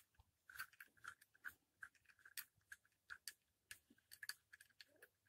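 Faint, irregular metallic clicks and scrapes of a hex key turning in the clamp screws of a Stihl brush cutter's gearbox as the new gearbox is tightened onto the shaft.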